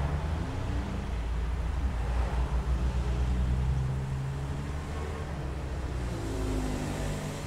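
Low rumble with a droning hum of road traffic noise, swelling a little midway and easing toward the end.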